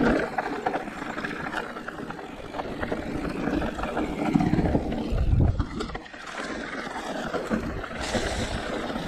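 Mountain-bike riding noise on a rough downhill trail: tyres rolling over the ground and the bike rattling over bumps, with a heavy low rumble from about four to five and a half seconds in.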